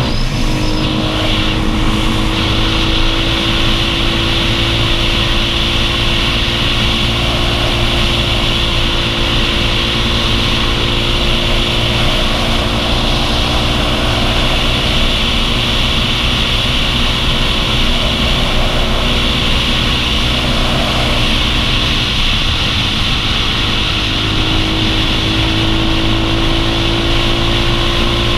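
Motorcycle engine running at steady cruising speed with wind rushing over the microphone. The engine note drops away briefly about two-thirds through, then comes back and rises again.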